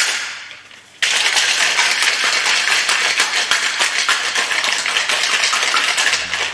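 Ice rattling hard inside a cocktail shaker as it is shaken: a dense, fast rattle that starts about a second in and stops shortly before the end. A short clink comes at the very start.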